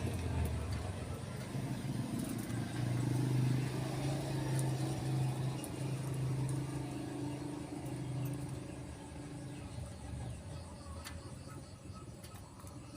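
A motor vehicle's engine running steadily close by, then fading away over the last few seconds.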